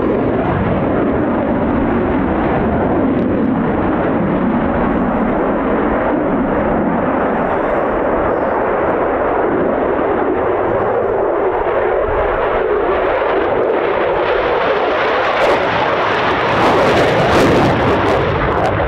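Jet noise from a Eurofighter Typhoon's twin Eurojet EJ200 turbofans as the jet flies its display overhead: a steady rushing sound that grows a little louder, with crackle, near the end.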